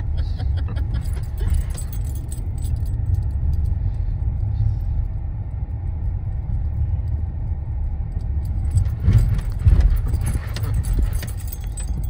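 Car interior road noise on a rough road: a steady low rumble with light jangling and rattling over it. The rattling gets louder around nine to eleven seconds in.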